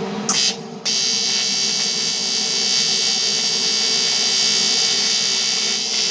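AC TIG welding arc on a motorcycle's aluminium crankcase: a loud, steady buzzing hiss over the welding machine's hum. The arc strikes just after the start, drops out for a moment, then runs on without a break.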